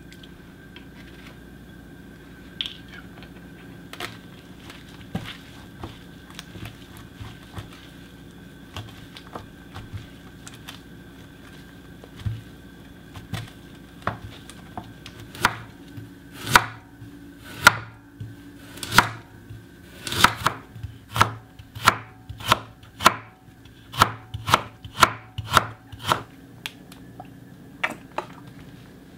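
Kitchen knife chopping on a cutting board. A few light scattered taps come first, then from about halfway a run of sharp, regular strokes about two a second, quickening before they stop. A faint steady hum runs underneath.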